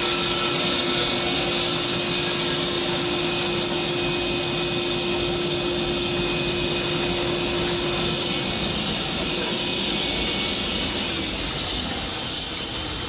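Bagged-ice vending machine's machinery running with a steady whir, a low hum dropping out about two-thirds of the way through.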